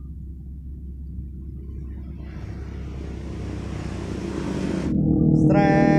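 A motor vehicle passing close by: a low rumble that swells over several seconds and turns loud near the end, where a steady engine hum comes in.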